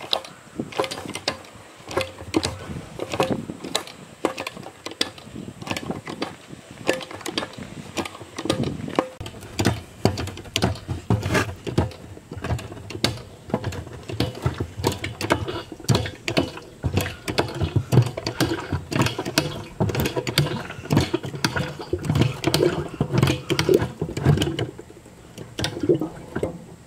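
Hand-lever bucket pump worked stroke after stroke, clicking and knocking on each stroke as it pumps oil through a hose into a gearbox, refilling it after a drain and flush.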